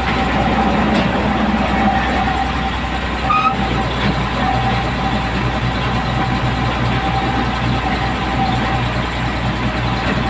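Heavy truck engine running steadily: a constant drone with a thin high whine over it.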